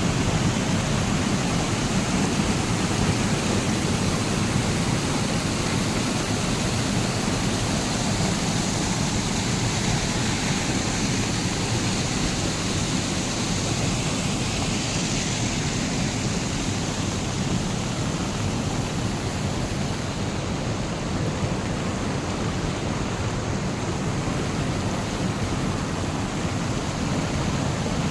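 Steady rushing noise of heavy rain and floodwater, even and unbroken throughout.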